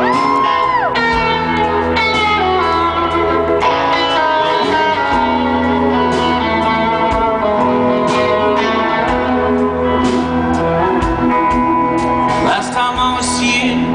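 Live rock band playing an instrumental break: an electric lead guitar plays sustained notes, bending one up and back down near the start, over the band's steady backing.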